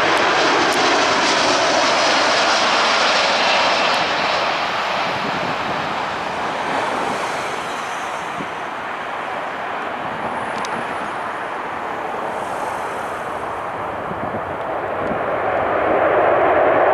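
Airbus A340-313 airliner's four CFM56 jet engines running, a steady rushing jet noise that eases off somewhat in the middle and swells again near the end.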